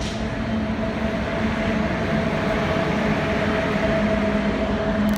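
Indian Railways WAP7 electric locomotive and its train running through the station: a steady rumble of wheels on rail with the locomotive's constant two-tone electrical hum, growing slowly louder as it comes closer.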